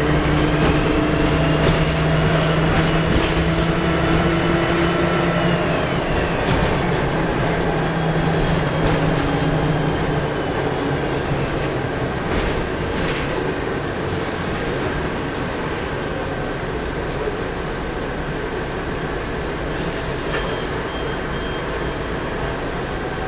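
Volvo B10M bus's turbocharged six-cylinder diesel engine pulling under load, its turbo whistle rising in pitch over the first few seconds, then falling away about six seconds in as the engine eases off. Occasional short rattles and knocks from the bus run through.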